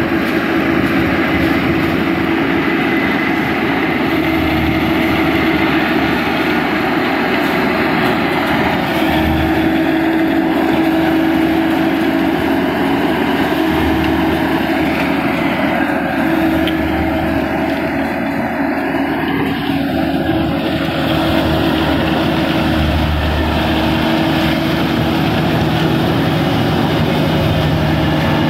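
Kubota DC-35 rice combine harvester at work, its diesel engine and cutting and threshing machinery running steadily under load as it harvests rice. The pitch of the running wavers slightly.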